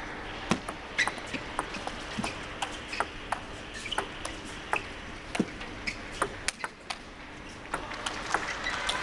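Table tennis rally: a celluloid ball cracking off the rackets and bouncing on the table, in a long run of sharp clicks at an uneven pace of about two a second. Quiet hall noise lies underneath.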